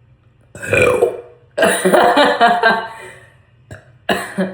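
A person forcing out a deliberate burp, short and abrupt, about half a second in. Then comes a longer drawn-out voiced sound of about a second and a half.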